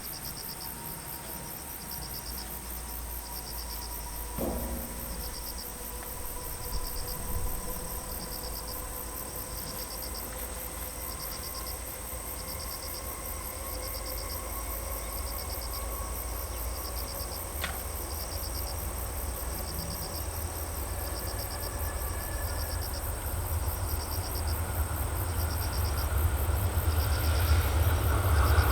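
Insects chirping in short trills repeated about once a second over a constant high chirr. Under them, the low rumble of an approaching freight train grows steadily louder toward the end.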